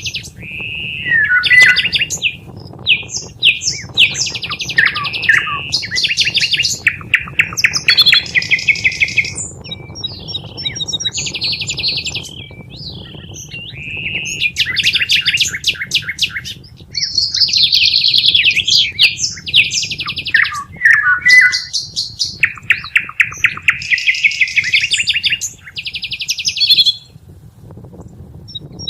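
Green bee-eater calling: bouts of rapid, buzzy trills lasting one to three seconds, some notes sliding down in pitch, repeated with short pauses, over a faint low hum.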